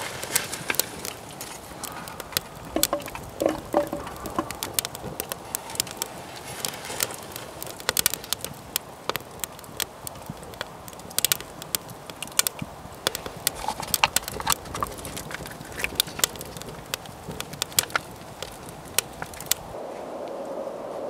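Wood fire crackling in a homemade ammo-box wood stove, with many sharp, irregular pops over a steady hiss. A few light clinks come about three to four seconds in and again near the middle.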